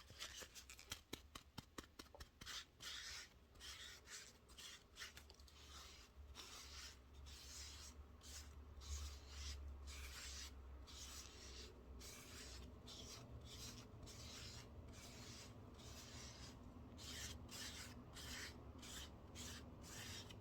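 Hands rubbing over the microphone in repeated strokes, quick and short for the first couple of seconds, then slower and longer: the close-up rubbing of a face being washed in ASMR.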